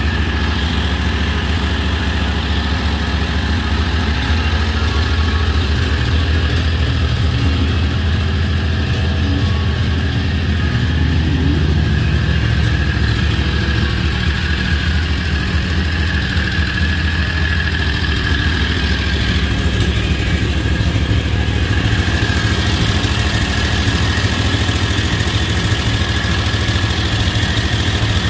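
Golf cart's swapped-in Predator gas engine idling steadily.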